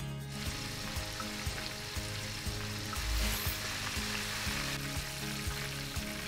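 Flour-coated chicken pieces deep-frying in a pot of hot oil: a dense, steady sizzle that starts a moment in.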